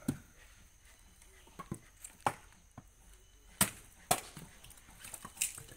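Firewood being split by hand with short chopping blades on a wooden block: about six sharp, irregular chops of steel biting into wood.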